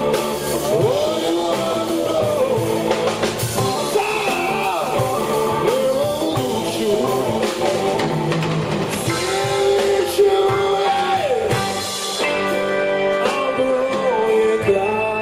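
Live rock band playing: a male voice singing over electric guitar, bass guitar, drum kit and a Hammond XK-3c organ.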